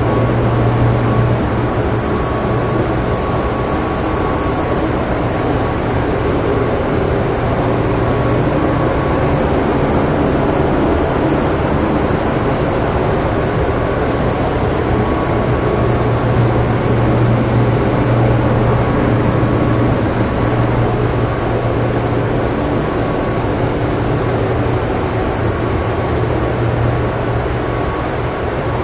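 Steady loud hum of spray-shop machinery, a low motor drone under an even rush of air, with no change in pace.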